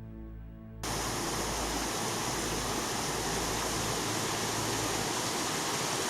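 Background music that cuts off abruptly under a second in, giving way to the steady rushing of a waterfall.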